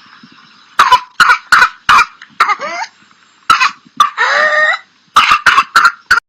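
A whooping cough (pertussis) coughing fit: runs of short, rapid coughs, with a long pitched gasp, the whoop, drawn in about four seconds in before the coughing starts again.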